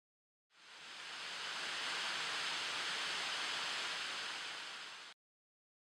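A steady rushing hiss that swells in over about a second, holds, and cuts off abruptly near the end, with a faint high steady tone running through it.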